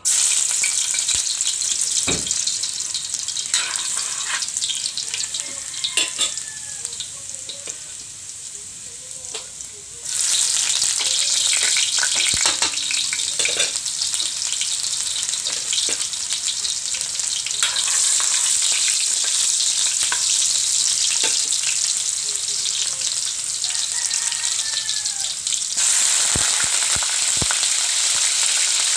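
Food sizzling as it sautés in hot oil in a pan, with scattered knocks and scrapes of a utensil stirring it. The sizzle jumps louder about a third of the way in and again near the end.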